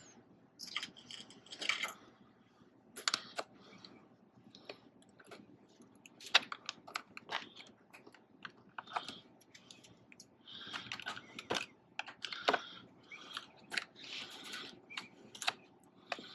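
Irregular sharp clicks and taps of tools and parts being handled, with a few short stretches of scraping or rustling, as components are refitted by hand.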